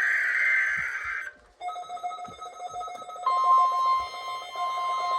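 NOAA Weather Radio test signal: a burst of digital header data tones ends a little over a second in. After a short gap, steady electronic alert tones begin, and the 1050 Hz warning alarm tone joins about three seconds in.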